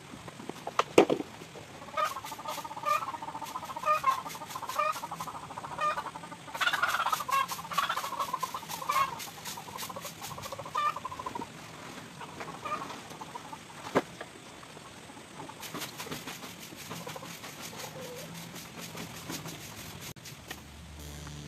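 Chickens clucking in a run of short repeated calls, over the scratchy back-and-forth strokes of a broom sweeping bare dirt. A single sharp knock comes about a second in.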